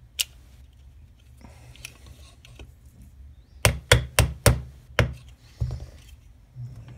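Small brass-headed gunsmithing hammer tapping a pin home in a polymer Glock-pattern pistol frame while the trigger is reinstalled: one light click, then about half a dozen sharp taps in quick succession a few seconds in.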